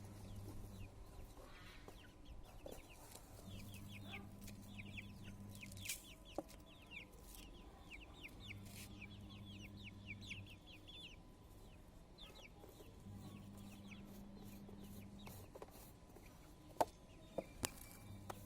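Chicks peeping: a fast run of short, high, falling cheeps, thinning out after the middle. A low hum switches on and off every few seconds, and a few sharp clicks come near the end.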